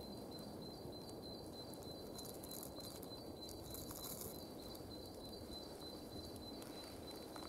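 Steady low rush of a Swedish fire torch burning under a kettle, with a thin, high, finely pulsing insect trill over it and a few faint crackles as dry leaves are crumbled into the kettle.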